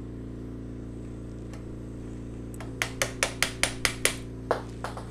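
A mallet tapping a brass sousaphone slide tube, held on a steel expander, while a torch heats its soldered end to unsolder it. A quick run of about seven sharp taps starts nearly three seconds in, then three more spaced-out taps near the end, over a steady hum.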